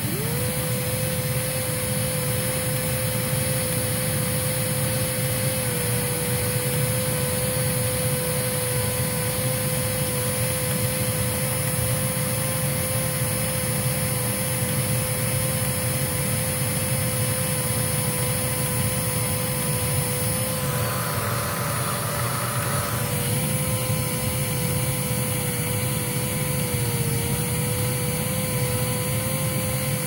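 Hoover Z400 vacuum cleaner motor spinning up, its whine climbing sharply within the first half second and then holding a steady pitch over a rush of moving air. A brief extra hiss comes in about two-thirds of the way through.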